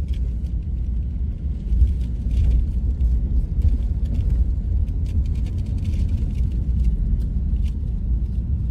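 Steady low rumble of a vehicle driving slowly, heard from inside the cabin, with faint scattered ticks over it.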